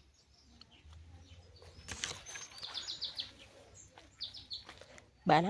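Small birds chirping: a quick run of high chirps about two seconds in, then a shorter run near the end. A loud drawn-out voice, rising then held steady, starts just at the end.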